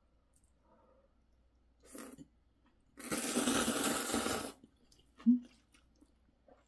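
A person slurping ramyeon noodles: one long, loud slurp starts about three seconds in and lasts about a second and a half. A shorter, softer sound comes a second before it, and a short sharp click follows near the end.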